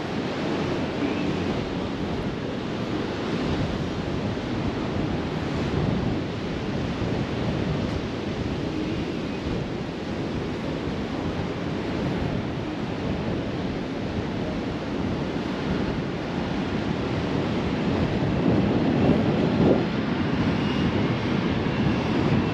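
Surf washing onto the beach, mixed with wind buffeting the microphone; the noise swells louder about eighteen seconds in.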